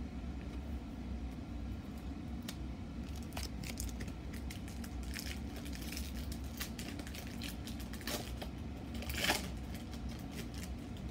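Foil booster-pack wrapper crinkling and trading cards being handled: a scatter of short crinkles and flicks, loudest about nine seconds in, over a steady low hum of running machinery.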